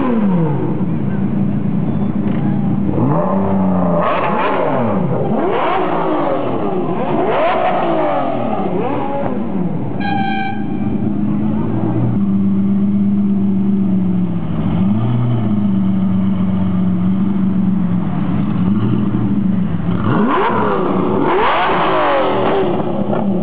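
Ferrari Enzo and Lamborghini Diablo VT V12 engines being revved: a string of sharp rev blips over the first ten seconds, and a short car horn toot about ten seconds in. Then the Diablo VT idles steadily with a single blip and is revved hard again near the end.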